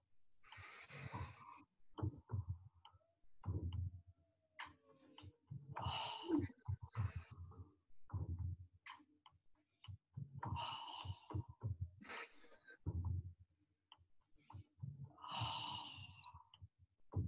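A woman breathing deeply and forcefully: long hissing breaths every few seconds, with low muffled thumps in between.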